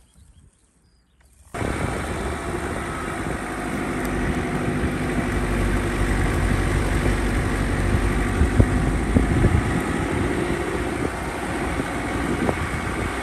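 A vehicle engine running steadily, cutting in suddenly about a second and a half in after near silence.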